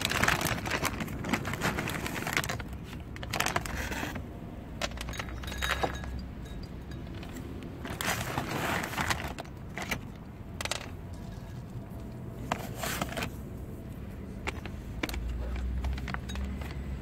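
Dry guinea pig pellets rattling and clinking into a plastic food bowl in several bursts.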